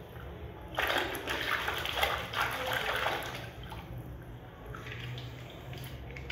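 Muddy water sloshing and splashing in a plastic tub as a hand swishes a toy truck around under the surface, loudest over the first few seconds, then settling to softer swirling.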